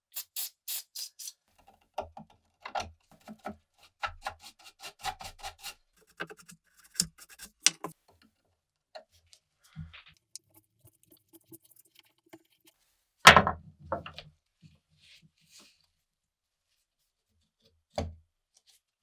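A few short hisses of aerosol penetrating oil sprayed onto a rusty steel bayonet, then scattered clicks and taps of metal handling and a screwdriver working at the grip screw. There is a loud knock about two-thirds of the way through and a smaller one near the end.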